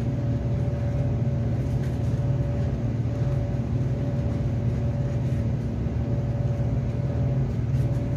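Steady low machine hum, like a room air conditioner or fan motor, running evenly throughout. Faint handling sounds come twice, as the fabric mask insert is folded.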